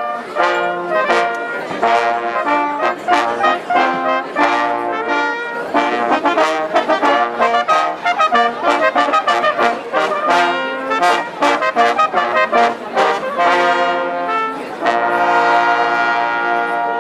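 Brass band of trumpets and trombones playing a tune in chords, then holding a long final chord near the end.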